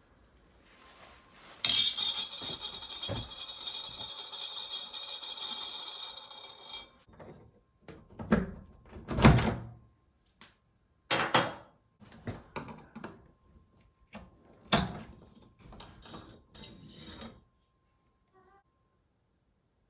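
Metal door-knob parts being handled: a few seconds of jingling, rattling metal with a ringing tone, then a run of separate knocks and clinks, the loudest about nine seconds in.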